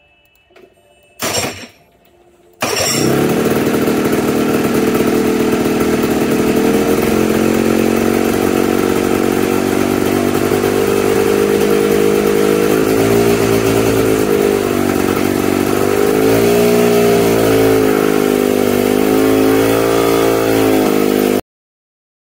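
Freshly rebuilt Kawasaki Tecate-4 330 big-bore two-stroke engine running on an engine dyno at about 3,000 rpm while it warms up. After a brief loud burst about a second in, the engine note comes in loud and steady, then wavers up and down in pitch over the second half. It stops abruptly near the end.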